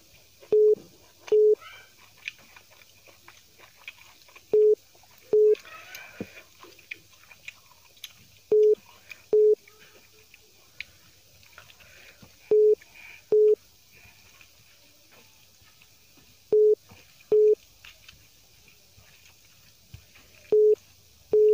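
A telephone beep tone: pairs of short, steady single-pitch beeps repeating about every four seconds, like a call-waiting signal. Under it are faint chewing and the rustle of rice being handled by hand.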